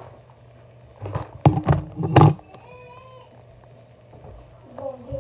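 A quick run of loud knocks or bumps, a second or so in, then brief faint voice sounds.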